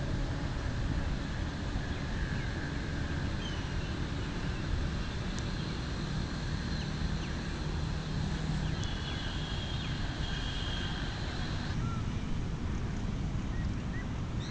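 Steady outdoor background noise with a low rumble, with a few faint, short, high chirps scattered through it.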